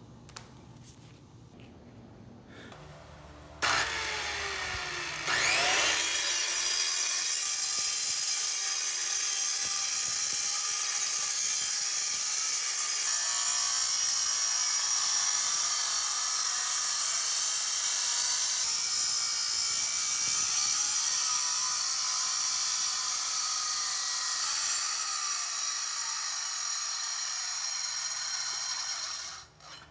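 Circular saw with a diamond blade cutting a concrete slab wet, water fed onto the blade: it spins up about five seconds in, then a steady high grinding runs until it stops just before the end.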